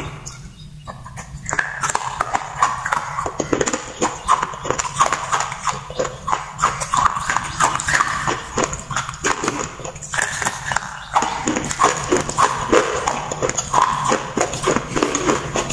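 Close-miked chewing of water-soaked slate pencil sticks: a dense run of crunches and mouth clicks, quieter in the first second or so and pausing briefly around ten seconds in.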